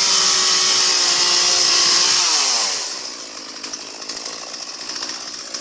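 Chainsaw running at high revs, then winding down about two seconds in and running on more quietly.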